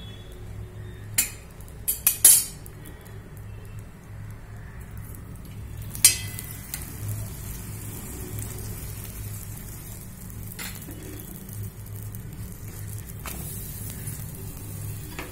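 Paratha frying in oil on a hot iron tawa, a steady sizzle. A few sharp metal clinks of a spatula against the pan come in the first couple of seconds and again about six seconds in.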